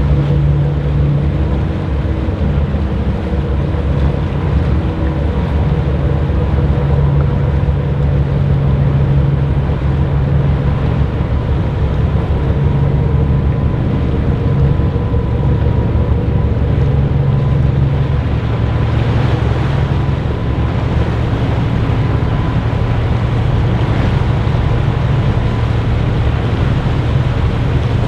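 Caledonian MacBrayne car ferry Coruisk's engines running under way with a steady low hum and a faint steady whine as the ship pulls away from the pier, its wash churning the water. Wind buffets the microphone.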